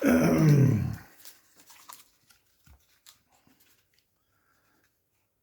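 A single pitched vocal sound about a second long, falling steadily in pitch, followed by a few faint clicks.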